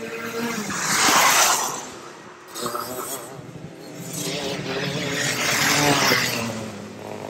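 Racing go-kart engines running at speed, swelling louder about a second in and again about six seconds in.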